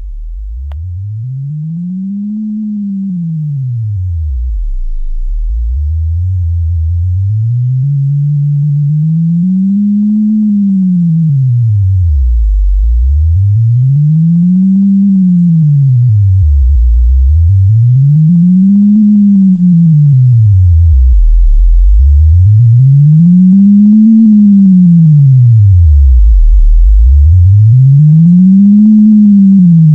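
Synthesized pure electronic tone used to turn a deafblind person's spatial experience with a haptic navigation device into sound. It glides slowly up and back down in pitch, low and deep, six times, about every four to five seconds, one rise climbing in steps. It grows gradually louder.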